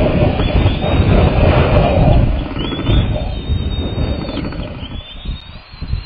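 Strong wind buffeting the nest-cam microphone in a loud, low rumble that eases about halfway through. Thin, high, drawn-out whistles sound a few times over the wind in the second half.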